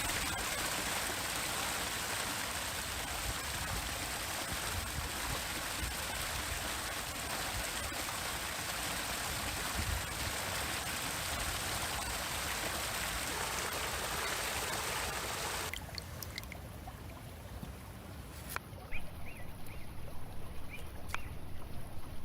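Steady running water, like a stream, that stops abruptly about two-thirds of the way in. Quieter outdoor sound follows, with scattered clicks and then a run of light knocks about three a second.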